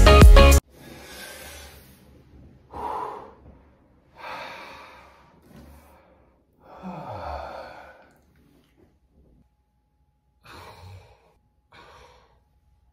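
A man breathing heavily and sighing in a series of separate exasperated breaths. The longest, about seven seconds in, is a groaning sigh that falls in pitch. Background music cuts off suddenly in the first second.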